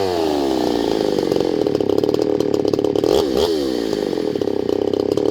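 Husqvarna two-stroke chainsaw engine coming off full throttle and winding down to idle in the first second, then idling, with one quick throttle blip about three seconds in.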